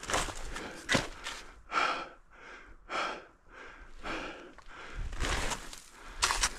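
A snowshoeing hiker breathing hard, quick breaths at about two a second through the middle, with snowshoe steps crunching in snow at the start and again near the end.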